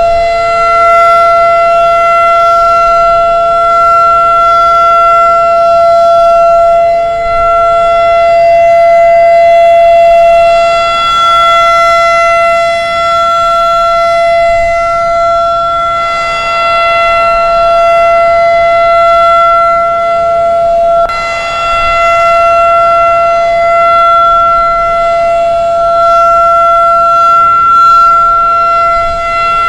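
Federal Signal 2001 electromechanical warning siren sounding its full alert signal: one loud, steady wailing tone held without rising or falling in pitch, swelling and fading a little in loudness every few seconds as the rotating horn sweeps past.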